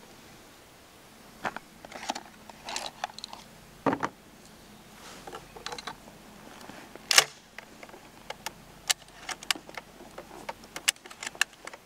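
Handling noises: rustling and a soft thump as ear protection goes on, then a string of clicks and clacks from a Stoeger M3500 12-gauge semi-automatic shotgun being handled and readied to fire. The sharpest clack comes about seven seconds in.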